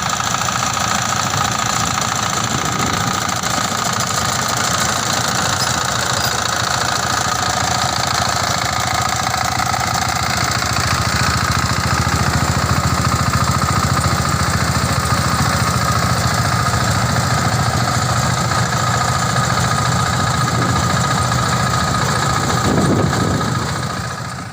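Mini rice combine harvester running steadily: a continuous engine drone with a steady high whine over it, fading out at the very end.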